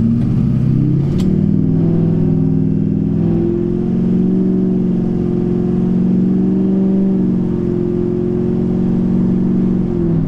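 Duramax 6.6 L V8 turbodiesel in a Chevrolet Silverado 2500HD accelerating at half throttle, heard from inside the cab. The pitch climbs and steps down as the Allison 1000 six-speed automatic, fitted with a Transgo shift kit, upshifts, then falls away at the very end as the throttle is lifted.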